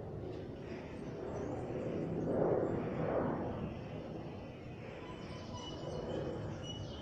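Steady outdoor background noise of distant traffic, swelling and fading about halfway through, as a vehicle or aircraft passes.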